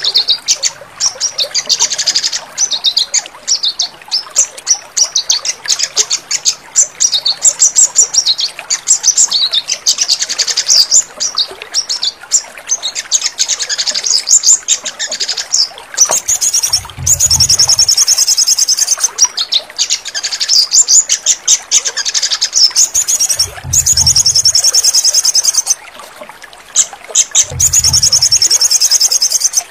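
A sogon, a small sunbird, singing a long, quick twittering song of high chirps. Fast, buzzy trill phrases take over in the second half. A short low hum comes in three times during the later trills.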